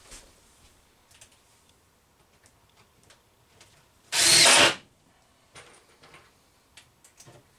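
Power drill driving a screw in one short burst of about half a second, with a few light clicks and taps around it.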